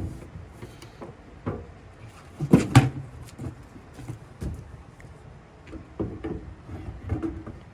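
Clunks and knocks of swing case toolbox mounting parts being handled and aligned in a pickup bed. The loudest two come close together about two and a half seconds in, with scattered lighter knocks after.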